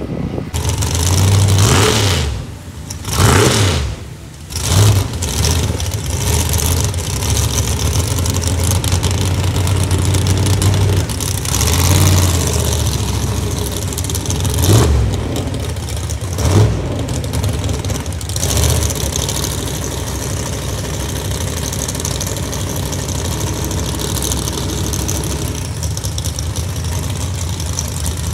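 Drag-race car engine revved hard several times in the first few seconds, then idling loudly with quick throttle blips about every two seconds while staged at the start line.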